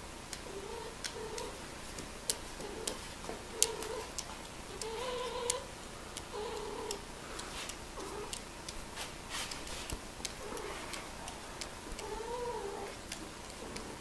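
Grey Scottish Fold cat giving a string of short, low yowls, some rising and falling in pitch: the calling of cats in mating season. Sharp clicks sound now and then, the loudest about three and a half seconds in.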